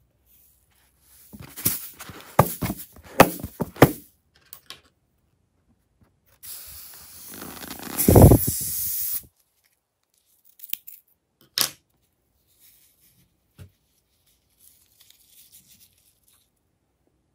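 Scissors cutting open a glitter-filled rubber balloon: a run of sharp snips and rubbery snaps, then a hissing rush a few seconds later that swells into a loud tearing sound, followed by a few scattered clicks.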